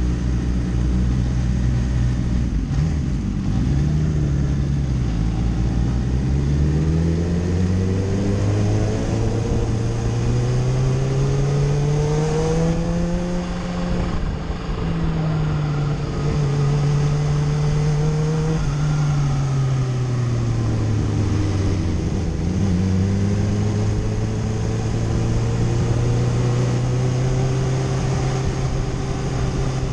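Kawasaki sportbike's inline-four engine heard on board while riding at moderate speed: the note dips twice a few seconds in as gears change, climbs steadily to a peak around the middle, drops back a few seconds later, then holds steady. Wind and road noise run under it.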